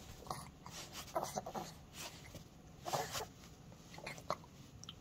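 An infant's short, quiet grunts and mouth noises, a handful of brief sounds a second or so apart, as he works a mouthful of rice cereal.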